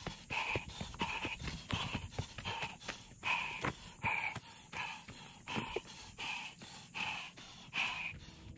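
A man panting hard while running uphill, about two heavy open-mouthed breaths a second, with footsteps crunching on dirt and dry leaves between them.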